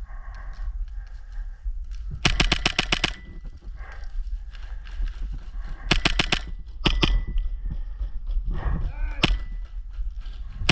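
Airsoft AAP-01 gas blowback pistol firing rapid full-auto bursts. There is a burst of about ten shots a little after two seconds in, another about six seconds in, and short bursts near seven and nine seconds. Under the shots is a steady low rumble of wind and movement on the microphone.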